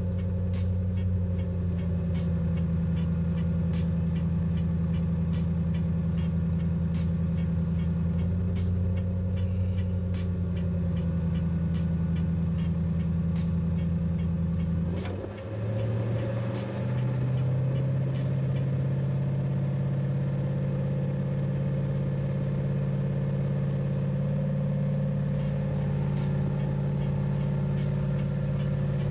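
Car engine idling steadily, pulled down to idle RPM by a heavy electrical load of around 350 amps from a battery load tester. About halfway through there is a click, and the engine speed picks up to a higher, steady pitch as the load comes off.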